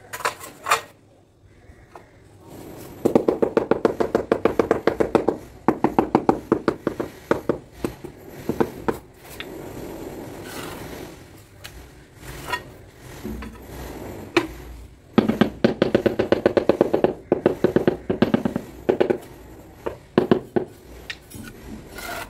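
A large floor tile being tapped down into its mortar bed: runs of quick, dull taps, several a second, with short pauses between runs.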